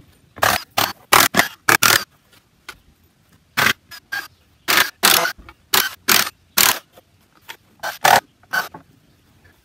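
Wooden concrete-form boards being pried and pulled off a cured concrete wall: about twenty short, sharp scraping and cracking noises in an irregular run, with short pauses between them.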